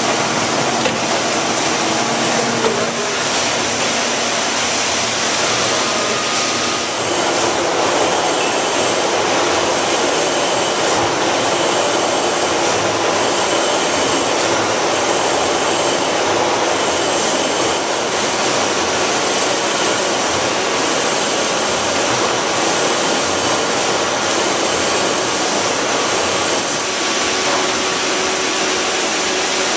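Steady machinery noise of a fish fillet trimming line: conveyor belts and processing equipment running, an even noise with a few faint constant tones.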